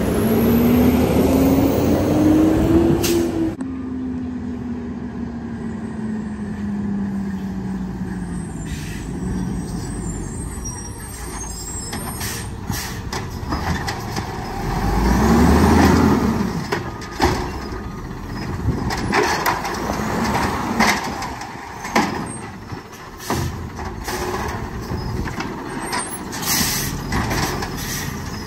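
Amrep Octo automated side-loader garbage truck: the engine revs up over about three seconds, then winds down slowly. Later comes a run of sharp bangs as the recycling cart is slammed against the hopper to shake it empty, with another engine surge in the middle.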